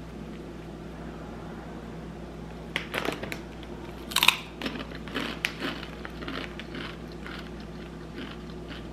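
Crunchy bites into a rolled Takis tortilla chip, the loudest crack about four seconds in, followed by a few seconds of crunchy chewing.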